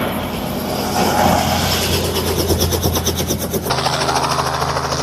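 Helicopter running, a steady engine hum with a fast, even rotor beat. The sound changes abruptly about four seconds in.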